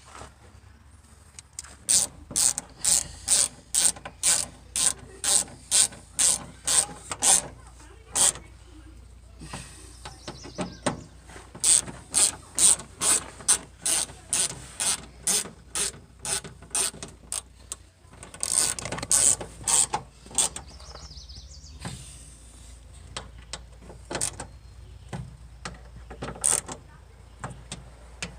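Ratchet wrench clicking in quick, regular strokes, about two or three clicks a second, in several runs with short pauses between.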